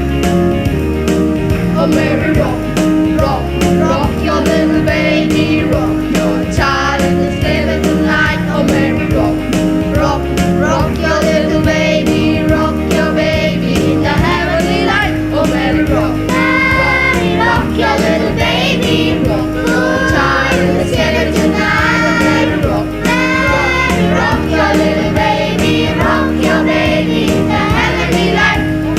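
School choir of children singing a song over instrumental accompaniment with a steady beat.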